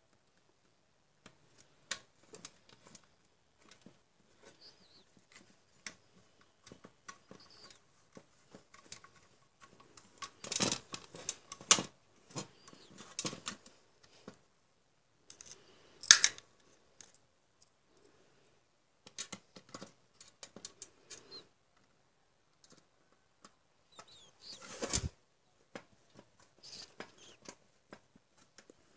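Scattered clicks, taps and light rattles of an LCD monitor's circuit boards and metal chassis being handled and shifted on a workbench, with a few louder knocks in clusters about a third of the way through, around the middle and again near the end.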